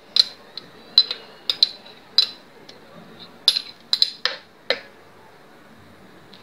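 A small white dish tapped again and again on the rim of a plastic blender jug to knock the last of the grated lemon zest into it: about a dozen sharp, uneven clicks that stop about five seconds in.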